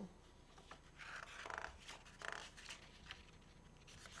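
Faint rustling of a paper page of a picture book being slid and turned by hand, with a few small ticks.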